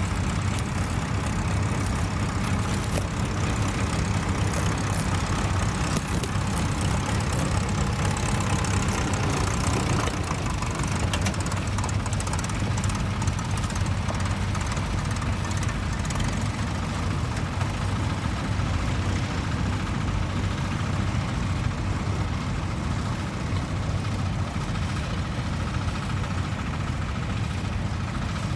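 Tractor engine running steadily, a low, even engine note that holds without revving up or down.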